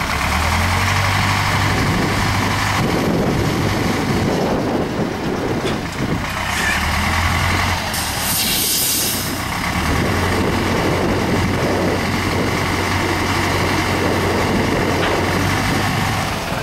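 Heavy diesel truck engine running steadily, with a short hiss of air about eight seconds in.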